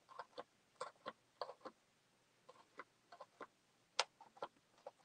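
A push pin poking through a paper pattern into stretched canvas: a series of faint, separate pops at irregular spacing, about two a second, with one sharper pop near the end.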